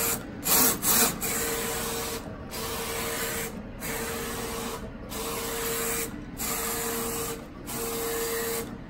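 Roland FJ-50 wide-format inkjet printer printing: the print-head carriage shuttles across the media with a steady whir and hum on each pass, dropping briefly at each turnaround about every 1.3 seconds.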